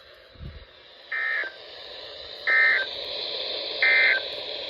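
Three short, identical bursts of buzzy SAME data tones, about a second and a third apart, over steady radio hiss: the Emergency Alert System end-of-message code sent at the close of a NOAA Weather Radio warning.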